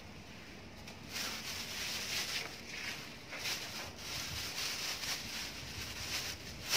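Plastic bag rustling and crinkling in irregular surges as it is handled, with a sharp click at the very end.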